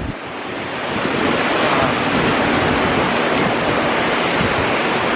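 Loud, steady rush of heavy rain, with wind.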